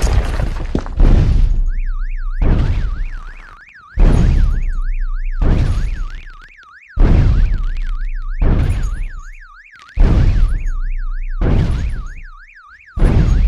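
Warbling electronic alarm siren, its pitch sweeping rapidly up and down without a break, over heavy booming hits that land about every one and a half seconds and fade between them.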